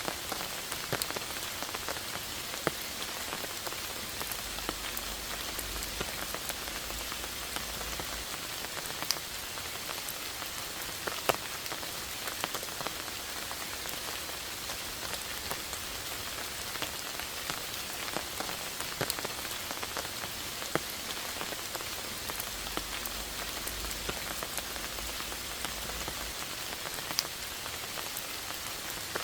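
Steady rain falling on moss and leaves: an even patter with many separate drops ticking sharply.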